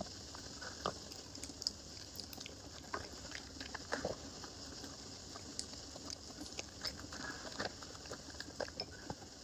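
An animal eating: irregular small crunches, clicks and smacks of chewing over a steady hiss.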